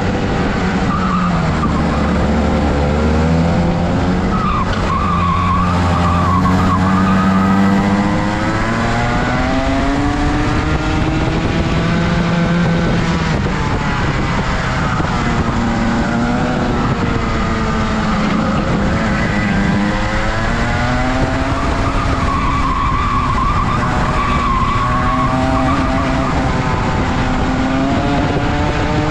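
Rotax racing kart's 125cc two-stroke engine running hard. Its pitch climbs and drops again and again as it revs up on the throttle and falls back.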